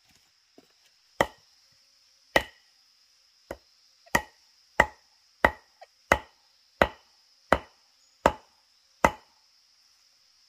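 Blade chopping into wood: about ten sharp strikes, spaced out at first, then a steady rhythm of roughly three every two seconds from about four seconds in, stopping after about nine seconds.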